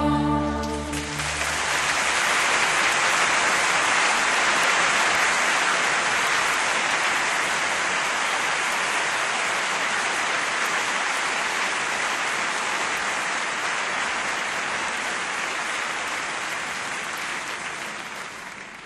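A choir's last held chord dies away about a second in, and audience applause follows, slowly fading and stopping near the end.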